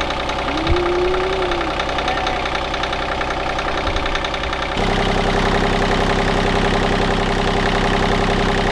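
A sailboat's freshly rebuilt inboard engine running at idle with a steady, rapid knocking beat, just restarted to check for oil leaks. About five seconds in it becomes louder and fuller.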